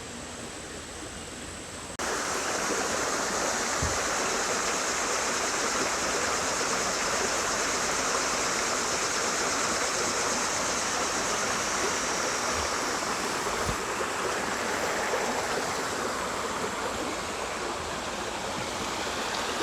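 Creek water rushing and splashing steadily, jumping louder about two seconds in.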